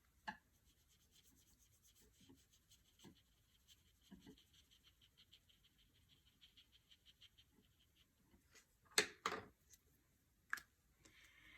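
Faint brush strokes on paper: a damp brush rubbing and dabbing in quick, even little strokes to blend watercolor, with a couple of louder taps near the end.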